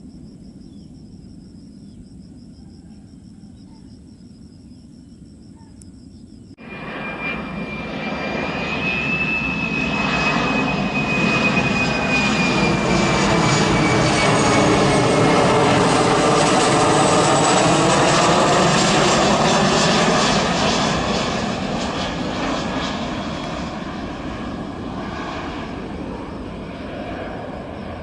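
Faint insect chirping over a low hum, cut off about six and a half seconds in by a Boeing 737 Classic on final approach, gear down, passing close overhead. Its turbofans' high whine falls in pitch as the jet noise swells to a peak and then slowly fades as the plane flies on.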